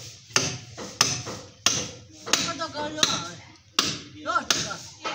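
A hand hammer striking in a steady rhythm, seven sharp blows about two-thirds of a second apart, with voices faintly between them.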